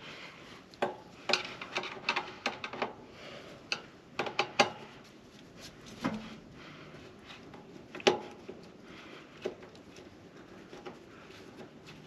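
Screwdriver working screws out of the top of a metal pellet-stove vent pipe tee: irregular light clicks and scrapes of steel on the pipe, with a few sharper clicks.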